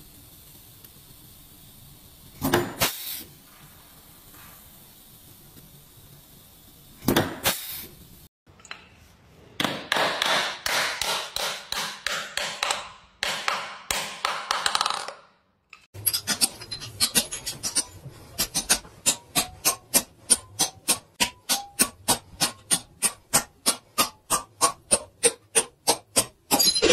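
Hammer blows on metal. There is a single knock a few seconds in and another a few seconds later, then a dense run of blows in the middle. In the last ten seconds comes a long, even series of sharp metallic strikes, about four a second.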